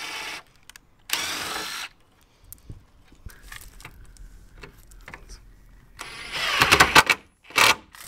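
Cordless impact driver driving stainless steel screws into wooden bench slats in short bursts: a brief run at the start, a longer one about a second in, the loudest burst around six to seven seconds, and a short final burst near the end.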